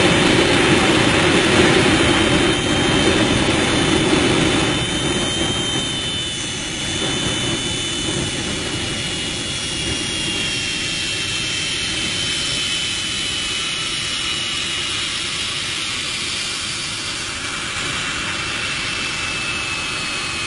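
Jet car's turbine engine running at the rear of the car, blasting exhaust flame: a continuous rushing noise with a high turbine whine that slowly falls in pitch. The noise is heaviest for the first six seconds or so, then eases to a steadier, lower level.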